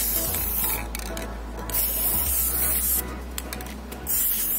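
Aerosol spray-paint can hissing in about three bursts of roughly a second each, with short pauses between, as black lacquer is sprayed onto a wire metal rack.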